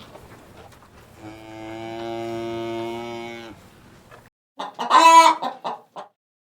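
A long, steady, low call, most likely a cow mooing, then after a short silent gap a loud, brief chicken call about five seconds in.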